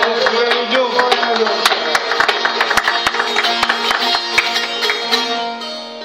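Albanian long-necked lutes, çifteli and sharki, plucked together in a quick folk tune: a dense run of sharp pluck strokes over steady drone notes. It grows a little quieter near the end.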